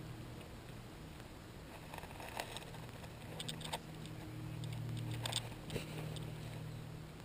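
Dry leaf litter and twigs crackling in scattered short clicks as someone shifts position, loudest about halfway through, over a low steady hum.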